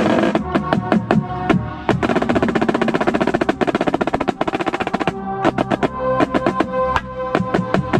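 Marching snare drumline playing together: a dense run of very fast strokes from about two to five seconds in, then separate sharp hits.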